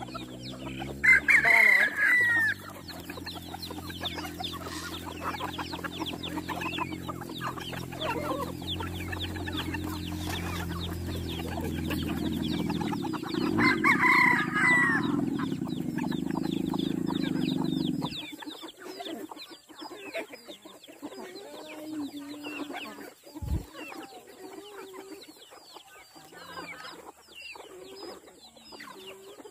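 Backyard chickens clucking, with roosters crowing loudly twice, about a second in and again around fourteen seconds in. A low steady hum sits under the first eighteen seconds and cuts off suddenly, and a single dull knock comes later.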